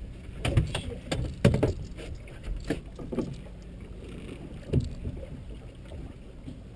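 Thumps and knocks of a large salmon in a landing net, thrashing against a fishing boat's deck as it is brought aboard. There is a cluster of sharp thumps in the first three seconds and one more about five seconds in, over a steady low rumble.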